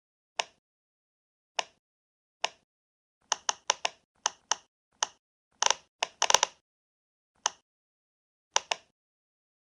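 A fidget toy clicking in short, sharp, separate clicks at an uneven pace: single clicks about a second apart, with a quicker run of clicks in the middle.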